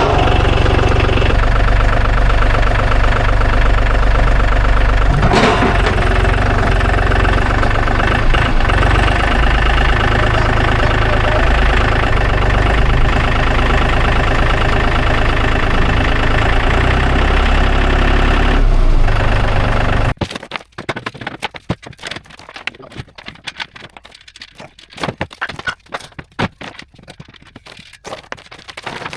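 An engine running steadily and loudly, which cuts off abruptly about twenty seconds in. Faint scattered clicks and knocks follow.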